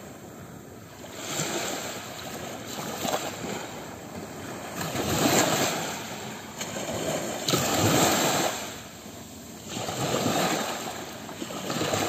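Small ocean waves breaking on a sandy beach and washing up the shore, a rushing surge swelling and ebbing every two to three seconds.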